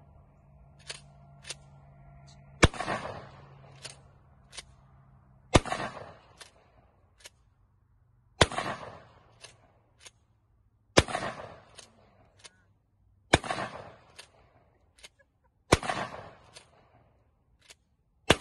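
Mossberg 590A1 pump-action shotgun firing target-load birdshot, about seven shots some two and a half seconds apart, each trailing off in a short echo. Between shots the pump is racked back and forward, two light clacks about half a second apart.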